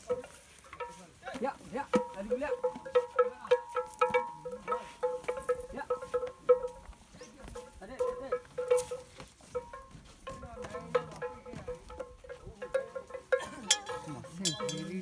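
Bells worn by elephants clinking and clanking irregularly, with a ringing note repeating about twice a second.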